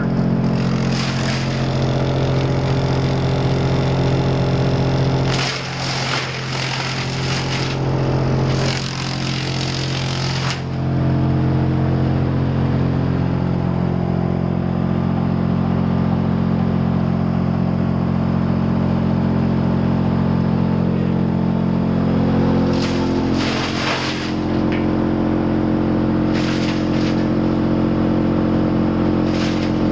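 Sawmill wood chipper running with a steady hum, broken several times by short bursts of harsher noise.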